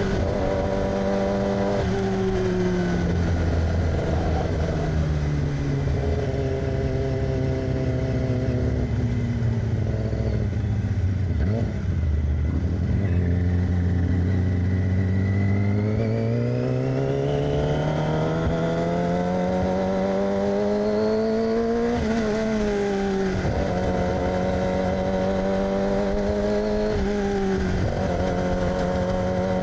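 2006 Yamaha R6's inline-four engine through an aftermarket AR exhaust, under way: the revs fall for about the first half as the bike slows, then climb steadily. Two quick gear changes dip the pitch about three quarters of the way through and again near the end.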